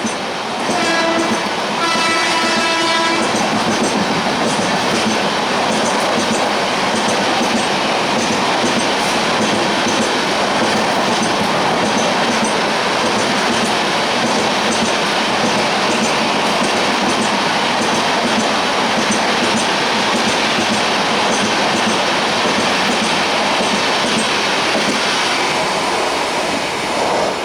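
WAP-7 electric locomotive horn sounding two blasts, the first shorter, in the first three seconds, followed by the steady noise of the train's LHB coaches running through the station at speed.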